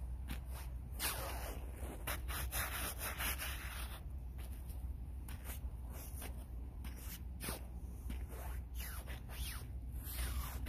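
Handling noise on a phone's microphone: clothing rubbing and scraping against it. A dense rustle starts about a second in and lasts some three seconds, with scattered scuffs and clicks throughout and a steady low rumble underneath.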